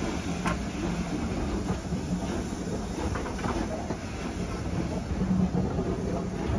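Vintage teak-bodied railway carriages rolling past close by, their wheels clicking over the rail joints above a steady low rumble.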